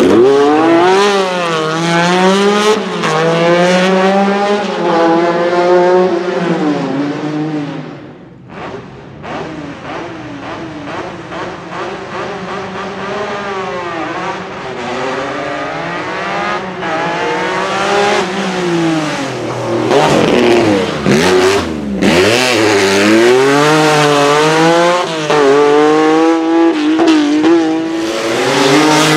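Lancia Stratos HF Group 4 rally cars' mid-mounted Ferrari Dino V6 engines revving hard, the pitch repeatedly climbing and dropping back through quick throttle blips and gear changes. About two-thirds of the way through, one car comes up and passes close by.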